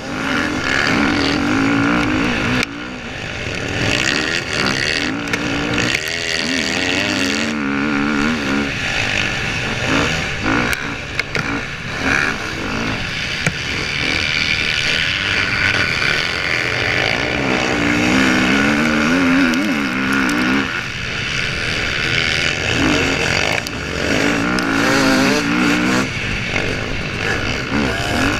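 Dirt bike engine heard from on board, revving up and falling back over and over as the rider accelerates and shifts, over heavy wind and track noise. Other dirt bikes are running just ahead.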